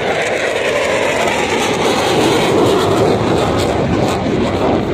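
Loud, steady rush of jet engine noise from an F/A-18F Super Hornet making a low, fast pass, loudest around the middle.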